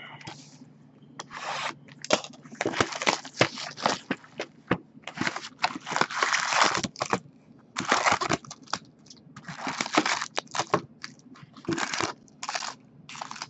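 Foil wrappers of 2015 Bowman Draft jumbo baseball card packs crinkling and rustling in irregular bursts as the packs are handled and pulled from their cardboard box, with some scraping against the box.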